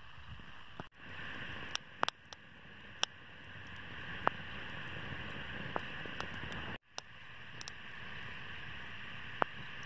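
Wood bonfire burning: a steady hiss with sharp crackles and pops every second or so. The sound drops out abruptly twice where the recording is cut.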